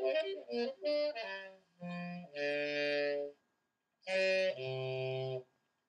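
Background music: a single melodic instrument plays a few quick short notes, then slower held notes separated by brief silences.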